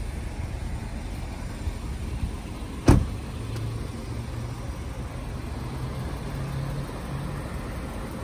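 A car door on a Range Rover SUV shut once, with a single sharp slam about three seconds in, over a steady low hum.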